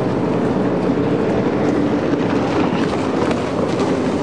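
Racing jet ski engines running at speed, a steady mechanical drone with a slightly wavering pitch.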